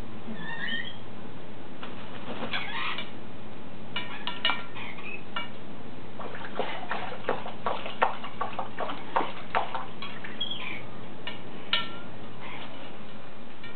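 African grey parrot bathing in a shallow ceramic bowl of water, splashing and flapping its wings in a quick run of splashes through the middle. A couple of short bird chirps come near the start and again near the end.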